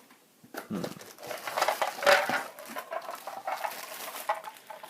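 Meat grinder parts clinking and knocking together as they are handled and lifted out of their box: an irregular clatter, loudest about two seconds in.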